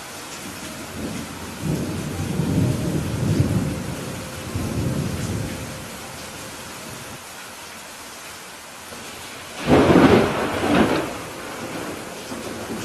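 Steady rain with thunder: a low rolling rumble in the first few seconds, then a louder, sharper thunderclap about ten seconds in.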